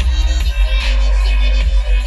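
Loud bass-heavy electronic music played live over a festival sound system, with a deep, steady sub-bass under busy high synth sounds.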